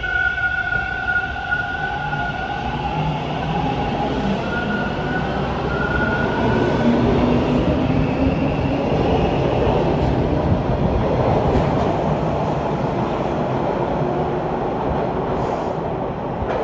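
Bombardier T1 subway train running along the station track: a high steady whine in the first few seconds, then the rumble of wheels on rail, growing louder toward the middle and staying steady.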